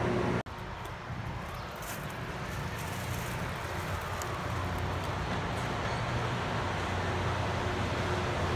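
Rail grinder's diesel engines running steadily as the train approaches, the low hum slowly growing louder; the sound drops abruptly at an edit about half a second in.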